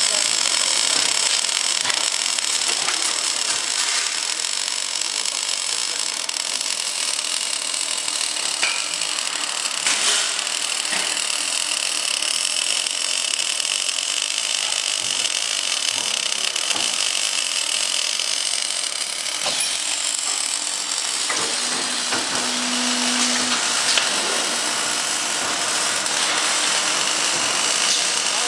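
Steel tube cutting machine running: a steady, high mechanical whir and hiss with a few sharp clicks.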